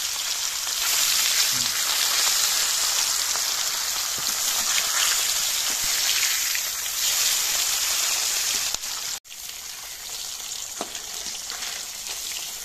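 Katla fish pieces sizzling in hot oil in a kadai: a steady, dense crackling hiss. About nine seconds in the sound drops out for an instant and comes back quieter, with a few light clicks.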